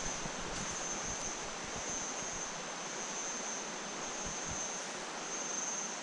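Steady rush of flowing river water, with a constant high-pitched insect drone over it and a few low bumps.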